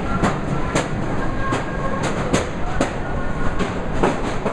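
Incline railway car of the Katoomba Scenic Railway rattling down its steep track, heard from inside the car in a tunnel: a steady rumble of wheels on rail with irregular metallic clanks every half second to a second.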